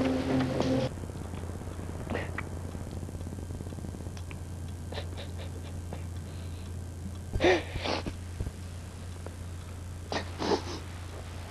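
A soft music cue ends about a second in, leaving a steady low hum. Past the middle, a person lying in bed makes two short breathy sounds a few seconds apart, the first the louder.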